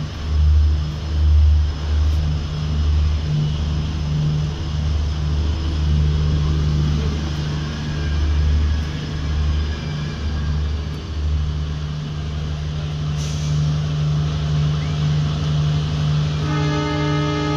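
A passenger train rolling slowly along a station platform, heard from inside the coach at an open window: a steady low rumble with an uneven throb and a brief hiss about two-thirds of the way through. Music comes in near the end.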